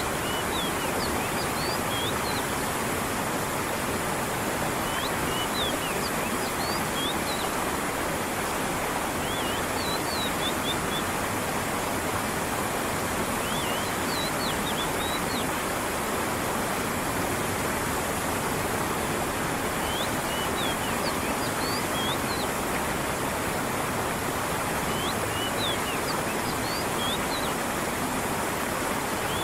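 Steady rushing of a creek and falling water, with small groups of short, high bird chirps every few seconds.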